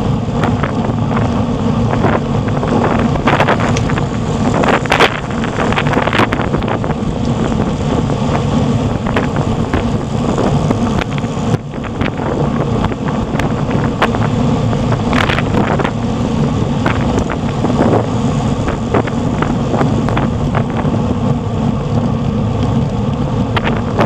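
Wind buffeting the microphone of a camera on a moving road bike, with tyre rumble on the tarmac and scattered knocks and clicks. The noise is steady and loud, dipping briefly a little before halfway.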